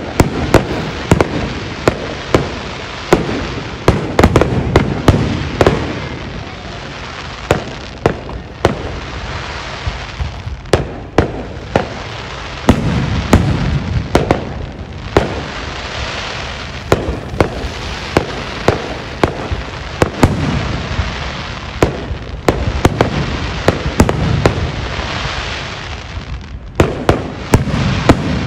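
Aerial fireworks display: a rapid, irregular string of sharp bangs from bursting shells, with a continuous crackle and rumble between them. The bangs thin out for a few seconds near the middle, then pick up again.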